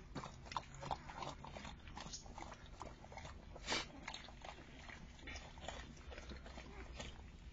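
Saint Bernard mother licking and chewing at a newborn puppy: wet, irregular smacking and slurping as she cleans off the birth membrane and works at the cord, with one louder smack a little past the middle.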